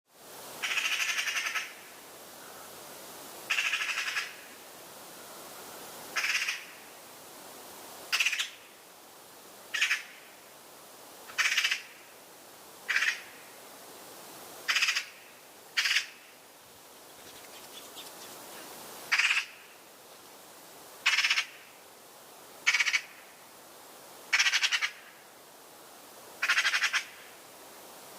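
Eurasian magpie chattering: short rattling calls repeated one every second or two, about fourteen in all.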